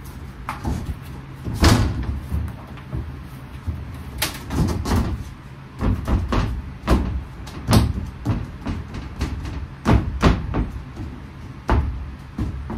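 Wooden panel being handled and test-fitted against a wooden frame and the fibreglass hull: a run of irregular knocks, thumps and bumps as it is shifted and pushed into place.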